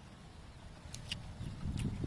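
Eating sounds: a few short mouth clicks and smacks from people chewing food eaten by hand, two close together about a second in and another near the end, over a low rumble that swells in the second half.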